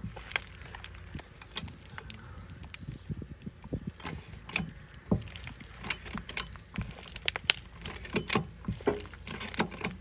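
A jack being worked to lift a mobile home's steel frame off a wooden pier block: a run of irregular clicks and knocks of metal and wood, with no steady rhythm.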